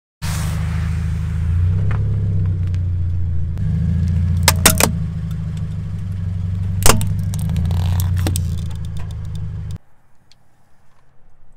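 A car engine idling low and steady while the tyre creeps over objects. There is crunching and several sharp cracks, a cluster about four and a half seconds in and another near seven seconds, as plastic and foam break under the wheel. The engine sound cuts off about two seconds before the end.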